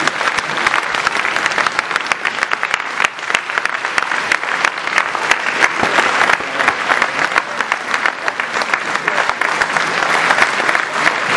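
Hall full of people applauding steadily at the end of a speech, many hands clapping at once, with some voices underneath.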